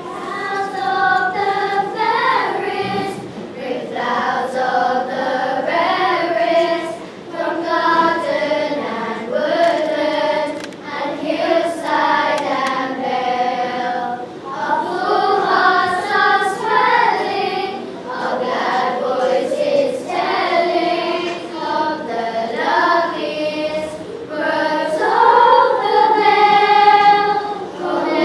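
A group of children singing together in sustained sung phrases, with short breaks between lines.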